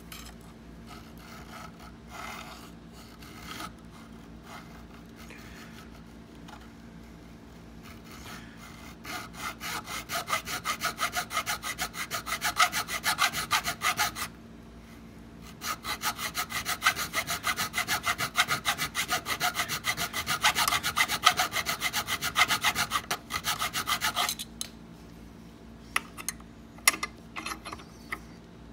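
Thin hand file stroking quickly back and forth across an antique bit key held in a vise, cutting the slot in the bit so the key clears the lock's lever. The filing comes in two runs of fast, even strokes, the first about five seconds long and the second about eight, after some lighter scraping; a few light knocks follow near the end.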